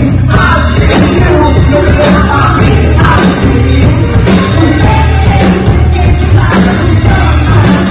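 Live band playing loud, with electric bass guitar, drum kit and guitar under women's singing voices through microphones.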